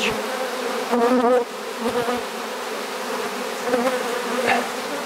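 Honeybees massed on the front of a hive, buzzing in a steady hum, with now and then a single bee buzzing close by, its pitch wavering.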